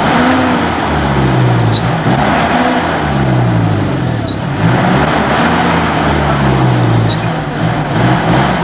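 An old jeep's engine revving hard, its pitch rising and falling again and again under heavy load as it climbs a steep, rutted mud track.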